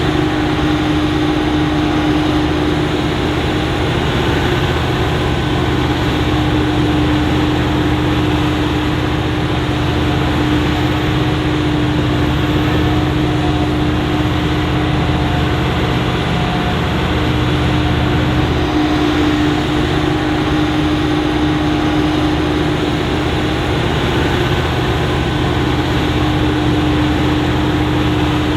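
Self-propelled forage harvester chopping maize, with tractor engines working alongside, running steadily under load with a constant droning tone.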